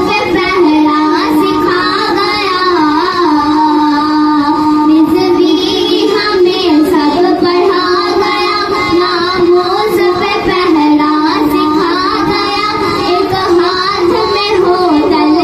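A young girl singing a naat, an Islamic devotional song, into a microphone, holding long wavering notes in an unbroken melodic line.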